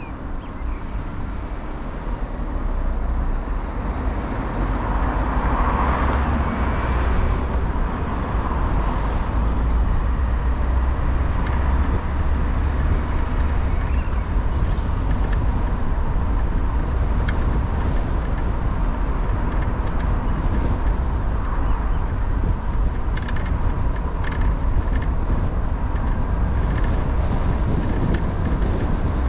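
Car driving on a road: a steady low rumble of engine and tyres that grows louder over the first few seconds, with a brief rush of noise about six seconds in.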